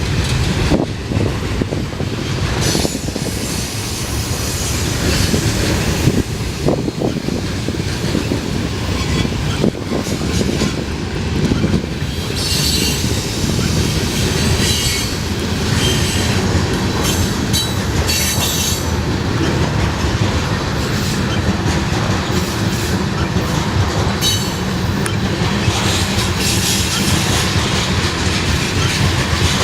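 Freight cars of a Canadian National mixed freight train rolling past, with a steady rumble and wheels clacking over rail joints. High-pitched wheel squeal comes and goes in the second half.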